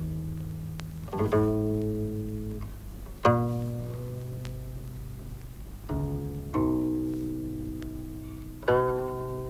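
Guqin played slowly in its low register: single plucked notes every one to three seconds, each ringing out and fading, in a melancholy phrase.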